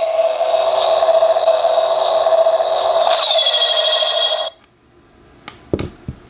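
Homemade lightsaber sound board in a beam saber hilt playing its steady electronic hum through a small speaker. About three seconds in comes a sharp click with a falling high tone, a clash or swing effect. The hum cuts off suddenly about four and a half seconds in, followed by a few small clicks.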